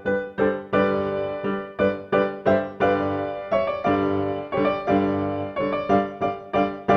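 Background music: a piano playing notes at a steady pulse of about two to three notes a second, each ringing and fading before the next.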